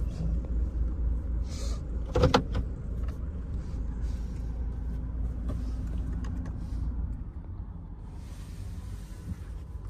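Toyota Fortuner SUV running with a steady low rumble, with a brief clatter about two seconds in.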